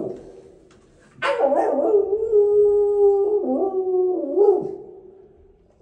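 Young puppy howling: one long, wavering howl starting about a second in, after the tail of an earlier one fades out.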